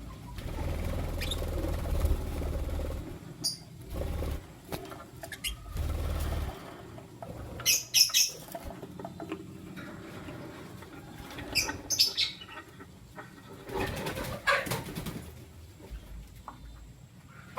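Lutino lovebirds fluttering and scuffling, with wing flaps and low thuds, broken by a few short, sharp chirps about eight and twelve seconds in and a burst of rustling near the end.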